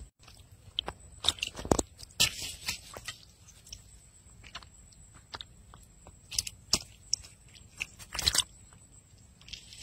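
Freshly caught fish flopping on a plastic sheet: irregular slaps, rustles and crackles of plastic, in clusters about a second in and again near the end.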